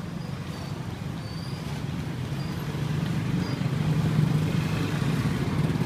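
Motor scooter engine running close by, a fluttering rumble that grows louder about halfway through as it passes, over street traffic.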